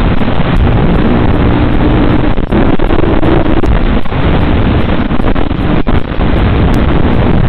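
Loud, steady static hiss with no clear tone, the kind an analog FPV video receiver puts out on its audio channel while recording the micro quad's feed.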